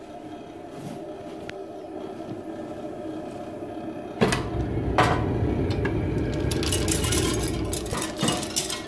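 Woodpecker pellet boiler running with a steady hum. About four seconds in, a latch clicks and a loud low rumble from the burning pellet fire comes in, with another click a second later and some scraping near the end. The burner is running well with its new blast tube.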